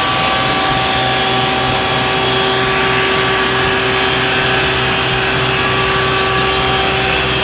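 Isuzu water-cannon tanker truck spraying: a loud, steady rush of the high-pressure water jet over the constant hum of the truck's engine and pump, with a few held tones.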